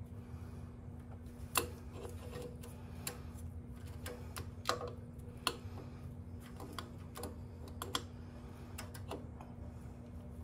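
Scattered light metallic clicks and taps as a timing chain and cam sprocket are worked by hand onto the camshaft of a Chevrolet small-block V8, to line up the timing marks. The clicks are irregular, roughly one a second, over a steady low hum.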